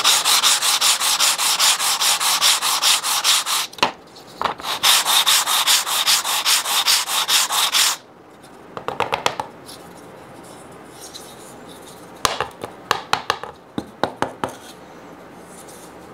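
Basswood panel being rubbed back and forth by hand on 120-grit sandpaper laid on flat MDF, in rapid, even strokes. There are two long runs of strokes with a brief break between them, then a few short bursts of strokes over the second half.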